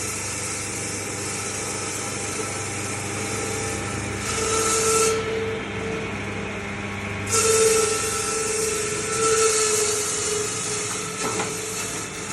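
Electric 12-blade ice-cutting machine running with a steady motor hum, its saw blades grinding through a block of ice about four seconds in and again from about seven to ten seconds in.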